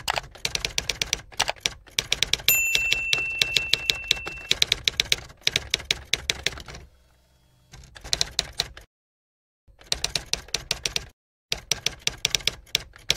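Typewriter sound effect: rapid key clicks, with a bell ding about two and a half seconds in that rings for about two seconds. The clicking pauses several times in the second half.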